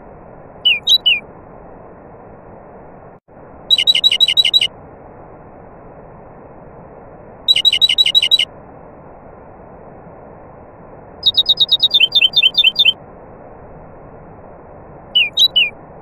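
Nightingale song in separate phrases: a few short rising whistles, then quick runs of repeated sharp notes, about nine a second, and a longer rattling trill midway, over a steady rushing background. The background drops out for an instant about three seconds in.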